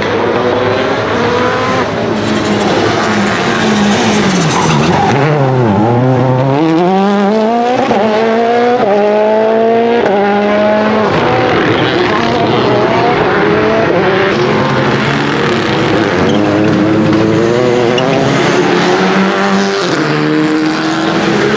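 Rally car engine at full racing revs, rising and falling through gear changes and lifts. About five seconds in it drops sharply to a low pitch and climbs straight back up, as when braking hard for a corner and accelerating out.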